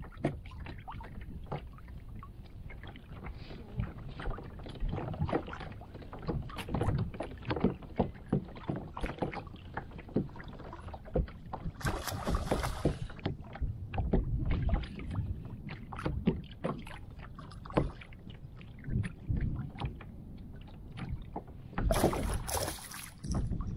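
Choppy water lapping against a kayak hull, with wind on the microphone and many small knocks throughout. About halfway there is a short rush of noise as the rod is cast. Near the end a hooked small northern pike thrashes and splashes at the surface beside the kayak, the loudest sound.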